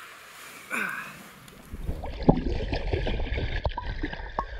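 Water gurgling and sloshing with small knocks and clicks, louder from about two seconds in.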